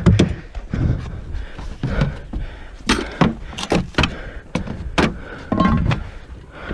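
Handling noise at an SUV's rear cargo area and door: a run of sharp clicks and knocks, about half a dozen in two seconds, with rustling and camera-handling bumps around them and a brief tone near the end.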